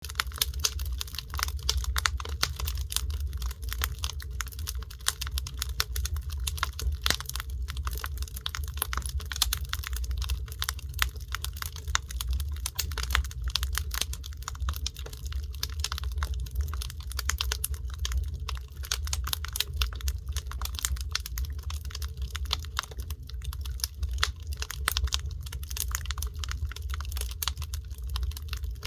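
Wood fire crackling, with dense irregular pops and snaps over a steady low rumble.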